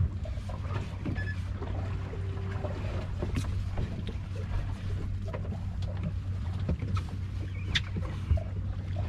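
A boat's engine idling with a steady low hum. Scattered light clicks and knocks sound over it.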